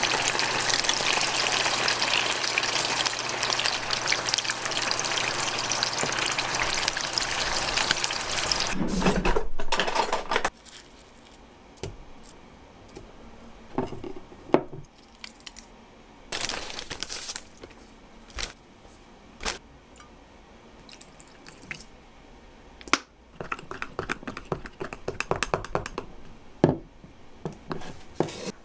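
Chicken pieces deep-frying in a pot of hot oil, a dense steady sizzle, for about the first ten seconds. It stops abruptly and gives way to quiet scrapes and taps of a wooden spoon scooping red sauce paste into a glass measuring cup and stirring it.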